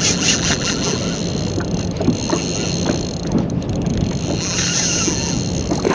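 Steady wind and water noise around a small fishing boat, with a low steady hum underneath and a few light knocks.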